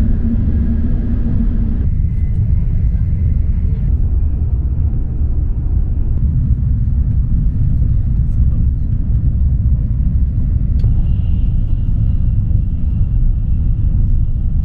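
Steady low rumble of a Shinkansen N700S bullet train running at speed, heard from inside the passenger cabin. A faint high whine joins in about eleven seconds in.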